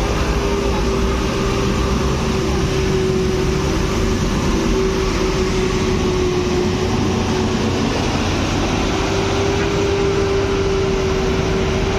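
A heavy vehicle's engine running loudly and steadily, with a steady whine over it.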